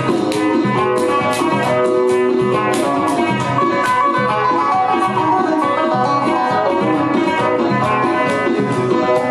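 Banjo and electric guitar playing a plucked, rhythmic tune together, with dense strummed and picked notes.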